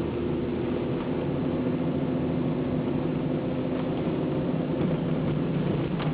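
Car driving at a steady pace: engine and road noise make a continuous low hum with a few steady tones.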